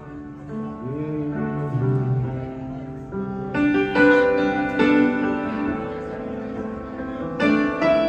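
Upright piano played live in a rock-and-roll ballad, chords struck and left ringing, with the loudest chords landing about three and a half seconds in and again near the end.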